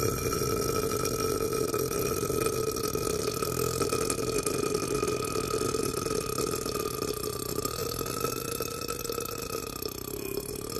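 A man's long, drawn-out belch, held without a break and slowly fading.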